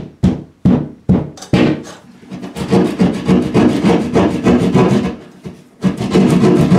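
Drywall jab saw going into gypsum board: a few separate sharp hits as the blade is driven in at the corner of the cut, the palm striking the handle, then quick, short rasping saw strokes through the sheetrock, with a brief pause near the end.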